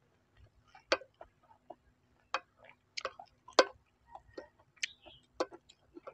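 Eating sounds: a metal spoon clicking and scraping against a ceramic plate of fried rice, mixed with close-up chewing, as irregular sharp clicks every half second to a second.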